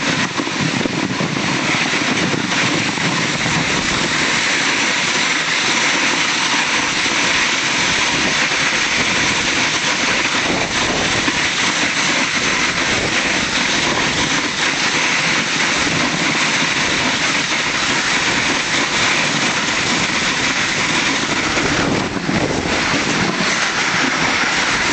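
Snow bob, a small plastic seat-sled, sliding fast down a packed snow track: a steady hissing scrape of the sled on the snow, unbroken throughout.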